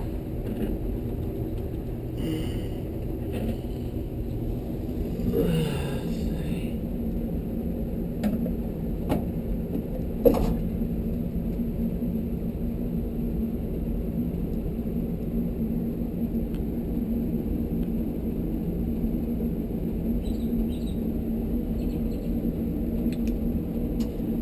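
Light clicks and clatter of sheet-metal panels and screws being handled during disassembly of a tankless water heater, with one sharp metallic click about ten seconds in, over a steady low background hum.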